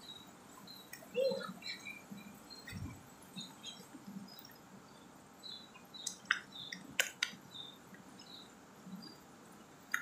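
Plastic spoon stirring sticky slime in a plastic cup as the glue and activator combine: soft scattered squelches and light clicks, with a few sharper clicks about six to seven seconds in.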